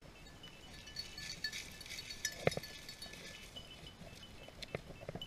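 Faint light metallic jingling with short ringing tinkles, and a sharp click about two and a half seconds in.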